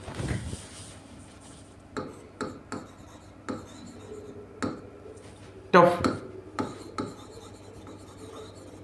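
Marker pen writing on a whiteboard: short strokes and light taps of the tip as words are written.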